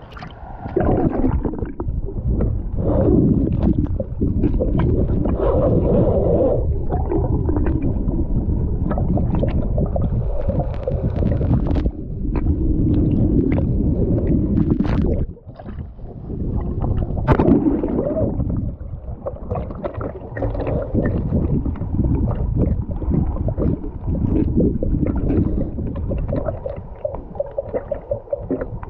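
River water heard underwater: a muffled, low rushing and gurgling, with scattered small clicks and knocks, dipping briefly about halfway through.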